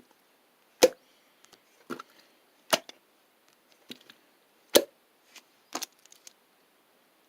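A series of sharp taps, roughly one a second, about six in all, the loudest about a second in and near five seconds in.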